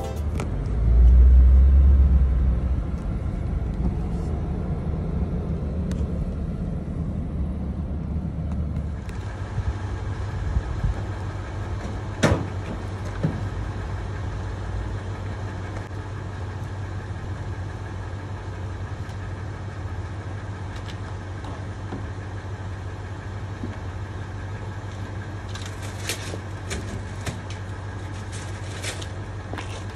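Pickup truck engine idling steadily, with a knock about twelve seconds in and light clicks and rattles near the end. A deeper rumble of a car driving fills the first several seconds.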